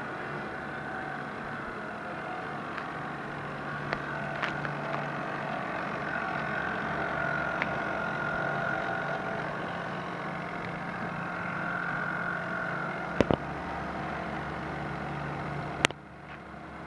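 A radio-controlled model boat's motor running steadily with a high whine that swells and fades a little. Several sharp clicks come through it, a double one about two-thirds of the way in, and the sound drops away suddenly near the end.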